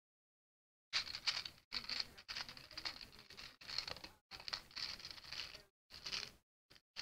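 Plastic bag crinkling and Lego pieces shifting as hands dig through them, in irregular bursts starting about a second in.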